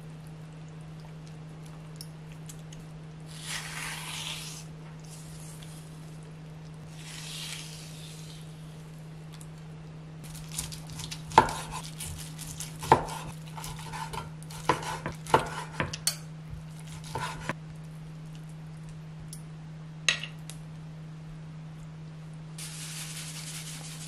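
Kitchen cookware sounds: a metal utensil clinking and scraping against a pot or dishes in a run of sharp ringing clinks in the middle, with a few short hissing stir or sizzle swells before and after, over a steady low hum.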